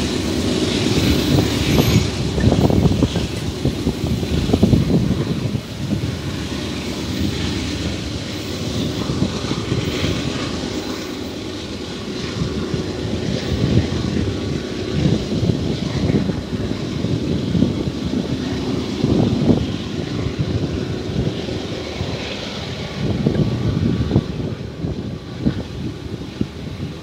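Freight train running on the line, a low rumble with gusts of wind buffeting the microphone throughout.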